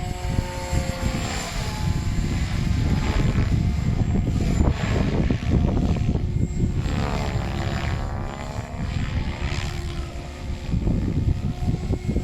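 Electric SAB Goblin 580 RC helicopter in flight, its rotor whine swooping in pitch as it manoeuvres, with the head speed set at 2150 rpm. Strong gusty wind buffets the microphone with a heavy rumble.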